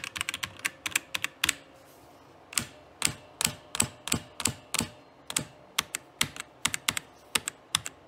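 Keys being typed on a Tecware Phantom mechanical keyboard fitted with its stock Outemu red linear switches: sharp separate key clacks, a quick run in the first second and a half, then after a short pause a steady two to three strokes a second. The owner finds these switches squishy and says they make a horrible ringing sound when typed on.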